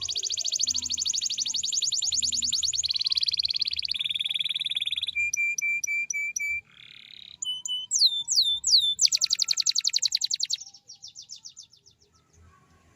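Domestic canary singing a long, sharp song of fast rolling trills, moving into a run of short clear notes, a buzzy note, three down-slurred whistles and another fast trill. The song fades out about two-thirds of the way through, leaving a short pause.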